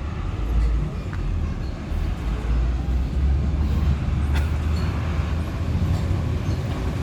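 A heavy road vehicle's engine running with a steady deep rumble, mixed with road noise.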